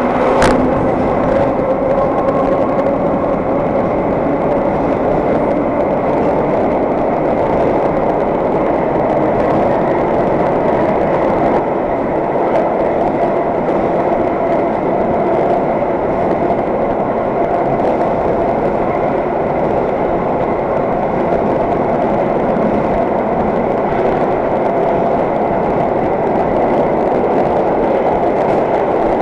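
A 1920s IRT Lo-V subway car running through the tunnel at speed, heard from inside: a loud, steady rumble of wheels on rail with a constant hum in it. A brief sharp high sound cuts in about half a second in.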